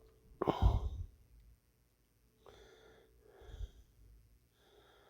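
A person's sharp, breathy burst about half a second in, followed by three softer breaths.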